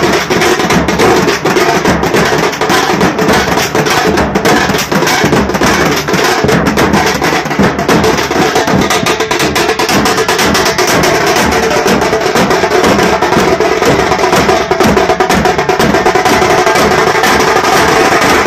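A street drum band playing loud, fast, unbroken beats on snare-style side drums struck with sticks.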